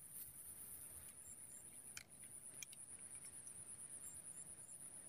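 Near-silent outdoor quiet with a faint, steady high-pitched drone of insects. A couple of faint clicks come about two seconds in.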